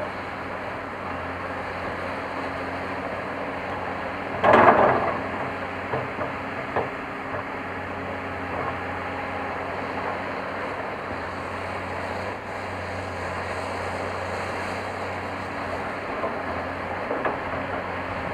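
Caterpillar 349L excavator's diesel engine running steadily as it digs and loads dirt, with one loud burst of noise about four and a half seconds in and a few lighter knocks after.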